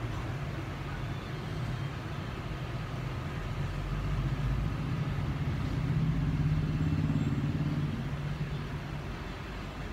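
A low, steady motor hum that grows louder about four seconds in, peaks a couple of seconds later, then eases off again.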